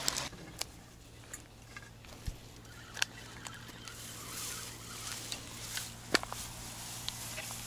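Faint scattered clicks and rustles over a low steady hum, with sharper single ticks about three seconds and six seconds in.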